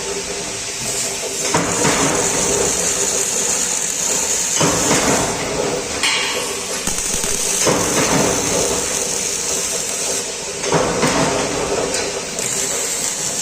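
MIG welding arc crackling and hissing steadily, in runs of about three seconds, each beginning with a sharper burst.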